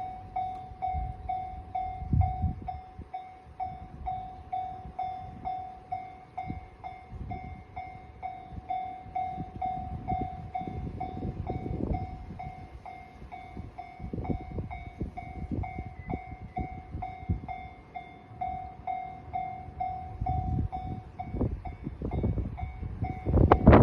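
Japanese railroad crossing warning bell ringing its steady, rapid 'kan-kan', about two to three strikes a second. Under it, a train's low rumble comes and goes and builds, turning loud with sharp clacks right at the end as the train reaches the crossing.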